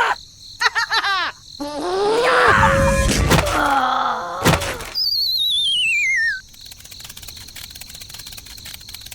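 Cartoon sound effects: short wobbly voice-like sounds, then a loud jumble of groaning cries with a heavy thump around three seconds in, then a wavering whistle sliding down for about a second and a half, leaving only a faint crackly background.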